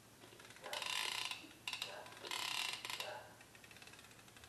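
Trolling reel's ratchet clicking rapidly in several short bursts as the reel is turned by hand; its clicker mechanism still makes noise.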